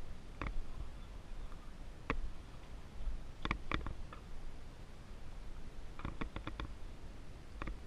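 Scattered light clicks and taps of gloved hands handling a dirt bike that is not running, including a quick run of about six clicks near the end, over a low rumble.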